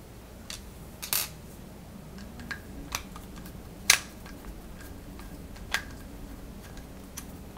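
Small hand-tool clicks and clacks as a screwdriver takes out the self-tapping M3 screws of a Proxxon KT70 X/Y table's end cap and the cap and metal parts are handled: about seven sharp, irregular ticks, with a short rattle just after a second in and the loudest click about four seconds in.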